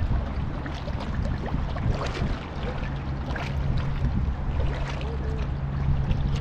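Kayak paddle blades dipping and splashing into choppy water in repeated strokes, with wind on the microphone and a steady low hum underneath.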